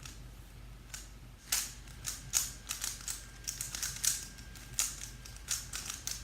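A 3x3 Rubik's Cube being turned quickly by hand: a fast, irregular run of plastic clicks and clacks, starting about a second and a half in.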